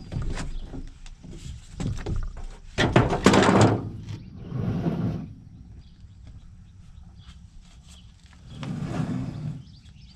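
Irregular knocks and thuds, with a loud scraping clatter about three seconds in and softer scraping noises later, like heavy parts or a door being moved around.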